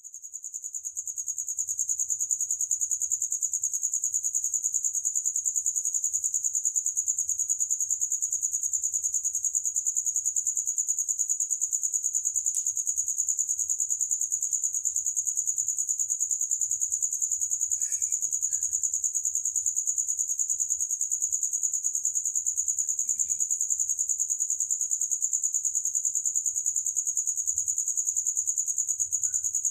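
Cricket chirping in a continuous, fast-pulsing high-pitched trill that fades in over the first couple of seconds and then holds steady.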